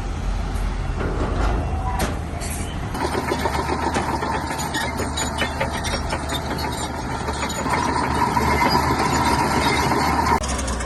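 Heavy diesel engine of a Shantui bulldozer running, louder and busier from about three seconds in with light clattering, then dropping back abruptly near the end.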